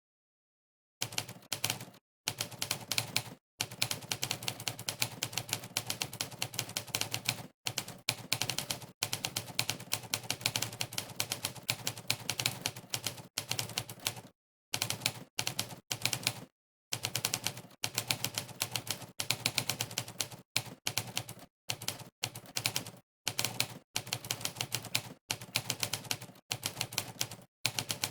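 Monkeytype's typewriter keystroke sound effect: one sampled typewriter key strike for each keypress, in rapid runs of many clicks a second at fast typing speed. The runs break off for short silent pauses, the first lasting about a second at the start, others briefly a few times after.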